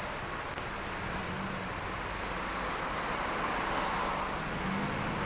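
Steady city street traffic noise from cars and motor scooters on a busy road, with a low engine hum that comes and goes.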